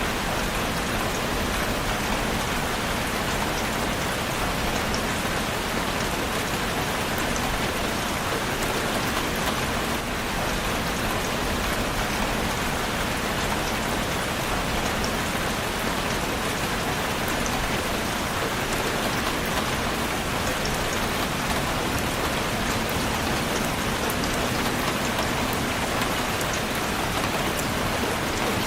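Steady rain falling, an even hiss with many small drop taps and no letup.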